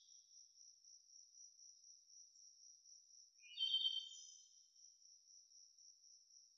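Faint, steady high-pitched pulsing trill of insects in the shoreline woods. A short bird call or song phrase of a few quick notes comes in about three and a half seconds in and is the loudest sound.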